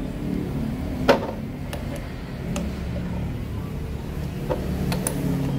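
A steady low mechanical hum with a few short, sharp clicks, like tools or metal parts being handled.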